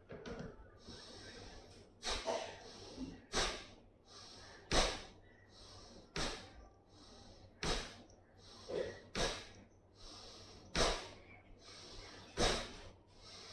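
A person's sharp, forceful breaths through the nose during pranayama breathing practice. After a quiet first two seconds they come about every one and a half seconds, roughly ten in all.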